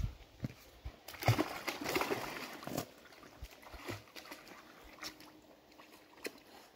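A large dog splashing back into the water of a small above-ground frame pool, loudest from about a second in, then water sloshing more quietly as it swims.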